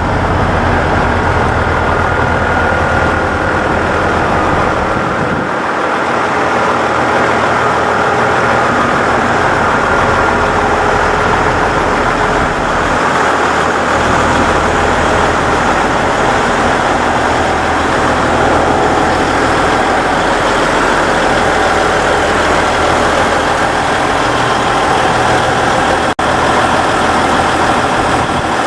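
Diesel engine of the KiYa 95 "Doctor Tokai" contact-wire and track measuring train idling steadily, a low engine hum whose deepest notes fade briefly and come back.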